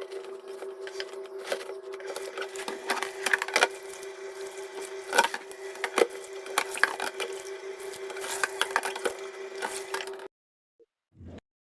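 Repeated light clicks and knocks of household items being handled during refrigerator cleaning, over a steady hum; the sound cuts off suddenly about ten seconds in.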